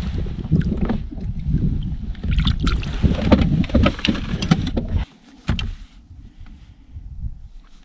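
Knocking and handling noise on a fishing kayak, busy and full of sharp clicks over a low rumble. It drops off suddenly about five seconds in, leaving a few faint clicks.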